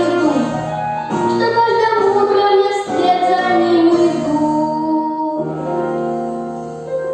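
A young girl singing a pop song over instrumental accompaniment. Her last phrase ends about five seconds in, and the accompaniment holds a final chord that slowly fades.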